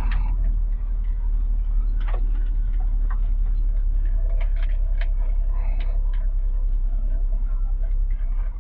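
Scania G 410 truck's diesel engine running under way, a steady deep rumble heard from inside the cab, with scattered ticks and rattles from the cab and the gravel road surface.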